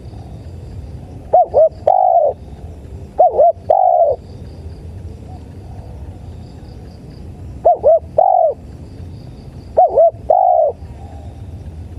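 Spotted dove (tekukur) cooing: four calls, each two short notes followed by a longer coo, spaced a couple of seconds apart. Crickets chirp faintly in the background.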